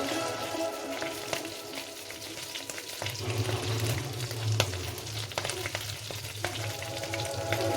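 Shrimp and garlic frying in margarine in a pan: a steady sizzle with frequent sharp pops and crackles.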